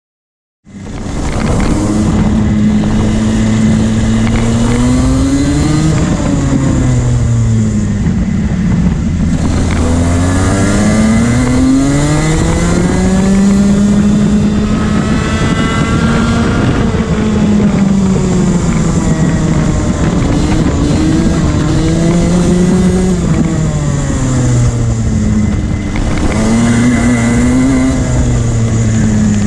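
Rotax 125cc single-cylinder two-stroke kart engine heard onboard at racing speed, its pitch rising long and high under throttle and dropping away as the kart slows for corners, over and over. The sound starts abruptly just under a second in.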